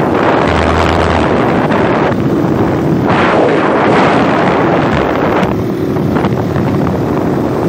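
Heavy wind noise on the microphone over a motorcycle engine running at riding speed on a dirt road.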